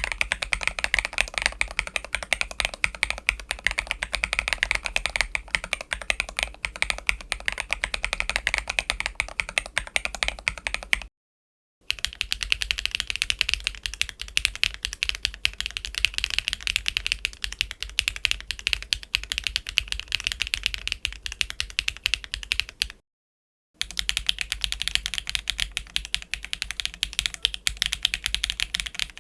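Fast typing on a mechanical keyboard with HMX T-Rex linear switches: a dense run of keystroke clacks. It comes in three takes split by brief silences about 11 and 23 seconds in, and the later two takes sound brighter than the first.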